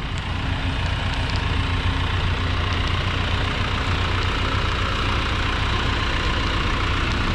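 A motor engine idling steadily with a low, even hum.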